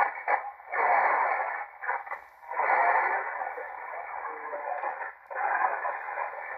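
Malachite DSP SDR shortwave receiver playing a lower-sideband signal on 3.755 MHz, in the 80-metre band, through its speaker. The radio audio is hissy and thin, cut off above the voice range by the narrow filter, and it swells and fades in uneven stretches.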